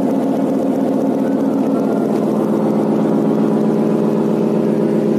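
A fishing trawler's diesel engine running steadily, a constant drone.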